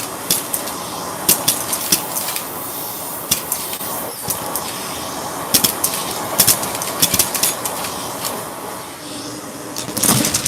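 Shark vacuum cleaner running steadily, with frequent sharp clicks and crackles over the motor and airflow noise.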